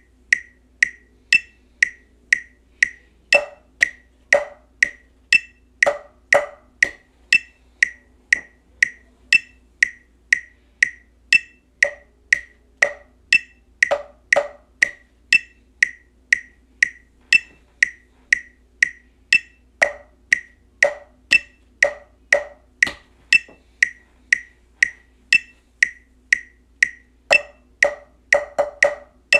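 Metronome clicking steadily at about two and a half clicks a second, with a higher click every few beats. Drumstick strokes fall against it at scattered points and in short groups, playing a marching bass drum part, more of them close together near the end.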